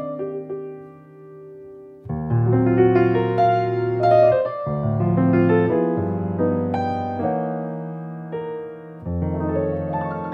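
Background piano music: soft held notes at first, then fuller struck chords from about two seconds in.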